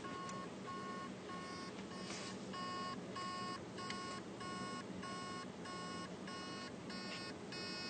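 Hard drive beeping in short, evenly spaced pulses, about three a second, as its spindle motor tries and fails to spin up the platters. This is most likely read/write heads stuck on a platter, though a seized spindle bearing gives the same noise.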